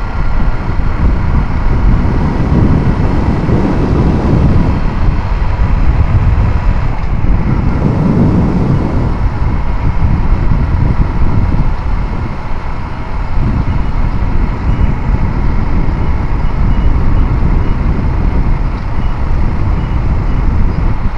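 Motorcycle riding along a road, its engine running under heavy wind rumble on the microphone, which swells a few seconds in and again about eight seconds in.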